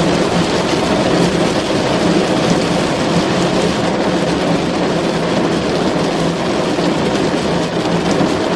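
Rain drumming steadily on a car's roof and windows, heard from inside the cabin as a dense, even patter.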